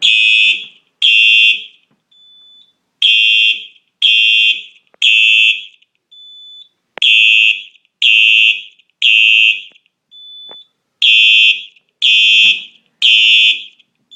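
Simplex 4903-9236 electronic horn strobe sounding a fire alarm after a pull station has been pulled, in the temporal-3 evacuation pattern: three loud, high-pitched half-second blasts about a second apart, then a pause, repeating. A faint thin high tone sounds in each pause.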